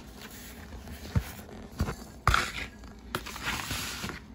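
Paper instruction booklet being handled and its pages turned: crinkling rustles with a few sharp taps, the loudest about two seconds in.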